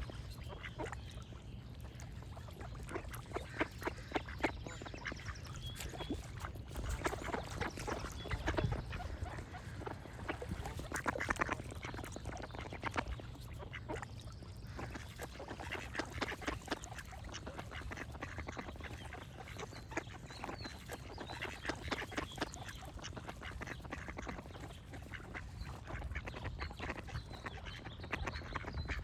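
Ducks quacking in repeated bouts of short calls, with faint birdsong chirping in the background.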